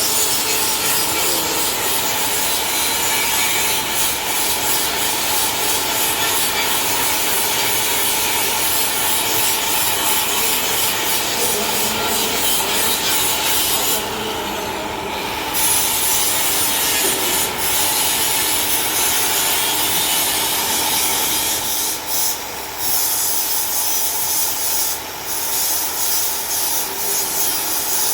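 Continuous abrasive rubbing of car bodywork being sanded during dent repair, broken by a few short pauses.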